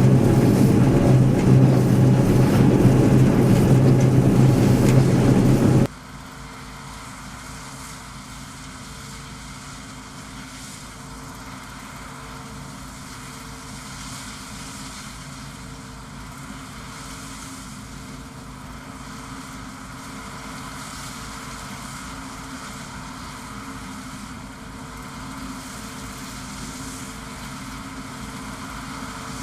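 John Deere 1075 combine harvester running steadily, with a loud low engine hum. About six seconds in it drops suddenly to a much quieter, steady machinery hum with a faint pulsing whine.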